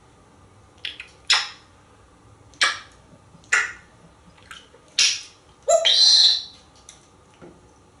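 African grey parrot giving a string of short, sharp calls, roughly one a second, then a longer, loud call about six seconds in.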